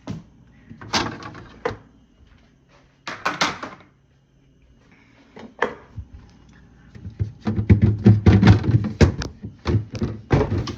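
Things being handled in and around a refrigerator: scattered knocks and rustles, then a quick run of clattering bumps in the last few seconds, as items or fittings are taken out of the fridge.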